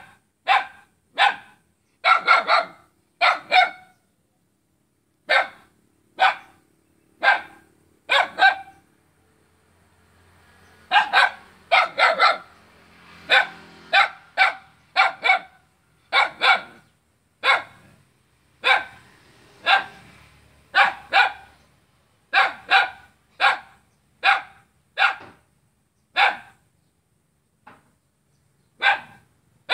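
Small dog barking over and over: short, sharp single barks about one a second, now and then two in quick succession, with brief pauses.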